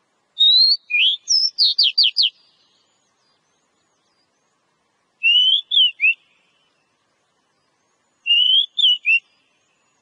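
Oriental magpie-robin (kacer) singing three clear phrases. The first is long: a rising note, then a quick run of about five downslurred notes. The other two are shorter three-note phrases, each a rising note followed by two falling ones, spaced a few seconds apart.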